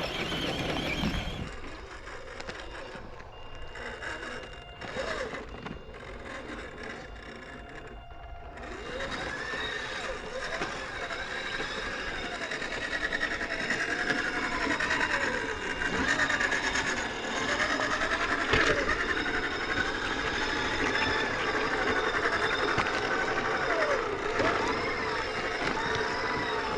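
Whine of a 1/10 RC crawler's brushed electric motor and gearbox. The pitch rises and falls again and again with the throttle, and it gets louder and busier after about eight seconds.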